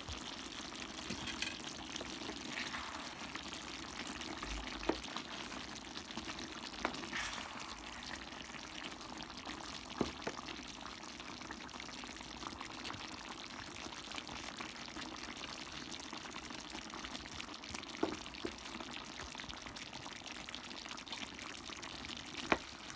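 Chicken and pork adobo in coconut milk simmering in a large pan, a steady sizzling hiss, as the sauce reduces and starts to release its oil near the end of cooking. A few short knocks of a wooden spatula against the pan as the stew is stirred.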